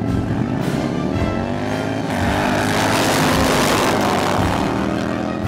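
Two motorcycles launching from a drag-strip start, engines revving hard as they accelerate past. The loudest pass comes about three to four seconds in and then fades. Music plays underneath.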